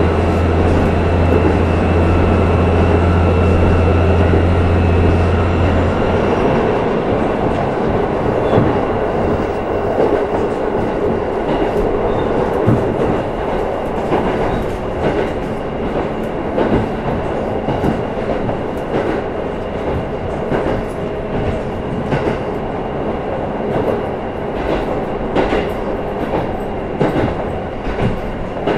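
KiHa 11 diesel railcar running, heard from inside the passenger cabin: a steady low engine drone for about the first six seconds, which then drops away, leaving the rumble of the car rolling with frequent clicks from the wheels over rail joints.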